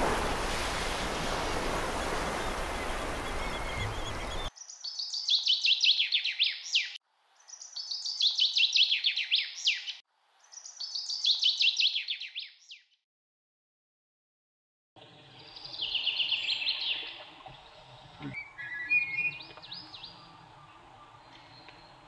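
Steady rushing noise for the first few seconds, then three bouts of rapid, high calls from a white-whiskered laughingthrush, each bout a quick run of notes about two and a half seconds long. After a short silence comes a quieter outdoor background with one more burst of calls and a brief run of chirps.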